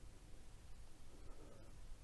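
Faint rubbing of a rubber applicator spreading diamond painting adhesive across a canvas, over a low steady room hum.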